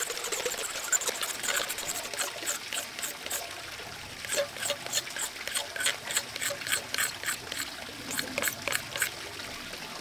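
Swiss Army Knife blade scraping the outer surface of a cow horn in quick, short rasping strokes, the finishing scrape of the horn. The strokes are irregular at first, then settle about four seconds in to a fairly even run of about three a second.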